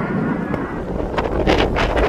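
Strong wind buffeting the microphone over the low rumble of a jet airliner's engines at takeoff, with harder gusts hitting in the second half.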